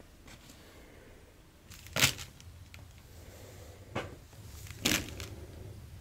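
Cable handling and plugging in: three short sharp clicks or knocks, about two, four and five seconds in, over faint room noise.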